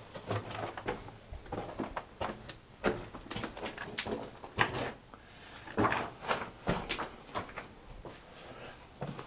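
Irregular crunching footsteps and scuffs on a rocky mine floor, with scattered knocks, a few to several each second.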